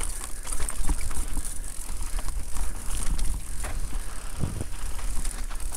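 Electric mountain bike ridden down a rough enduro trail: tyres on dirt and the bike rattling, with irregular knocks over bumps, over a steady low rumble of wind on the microphone.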